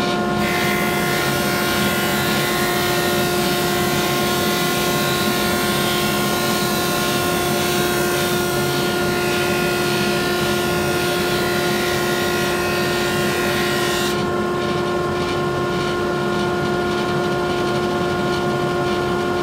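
Grizzly G0458Z open-end drum sander running with a steady whine. A board being sanded under the drum adds a loud hiss that stops suddenly about 14 seconds in as the board clears the drum.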